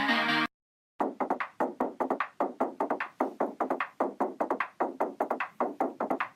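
Electronic music: sustained synthesizer chords cut off about half a second in, and after a brief silence a fast run of short, dry percussive notes follows, about five a second.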